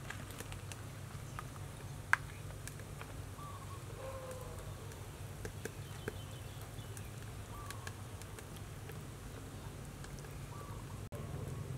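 Quiet outdoor ambience: a steady low hum with scattered short bird chirps. A sharp tap comes about two seconds in, with a few lighter clicks later.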